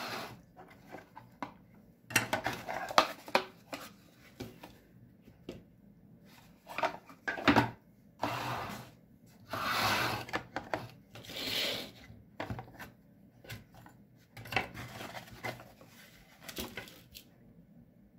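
Potting soil being scooped and poured into a plastic flowerpot with a plastic trowel: irregular scrapes and knocks of plastic, with three hissing pours of soil, each about a second long, around the middle.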